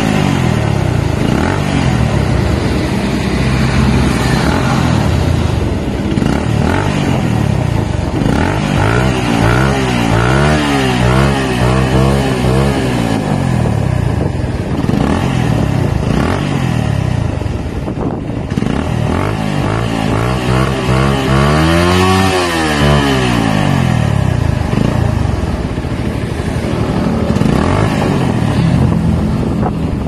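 Suzuki Raider R150's single-cylinder four-stroke engine revved again and again through an Exos X6 aftermarket muffler, its pitch rising and falling with each throttle blip. One higher rev comes a little past the middle.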